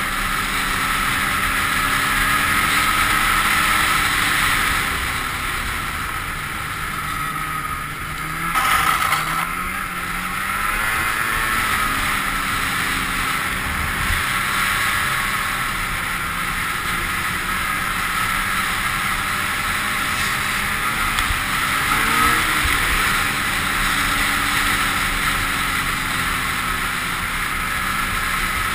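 Polaris snowmobile's two-stroke engine running at speed over a steady rush of wind. Its pitch falls as the sled slows about a quarter of the way in, then climbs again as it speeds back up, with a brief rise in revs a bit past the middle.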